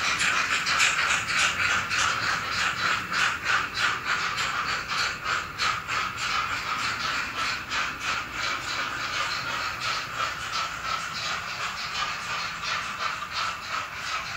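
N-scale model train running: a small motor whirring with a steady rhythm of two or three clicks a second, growing a little quieter toward the end.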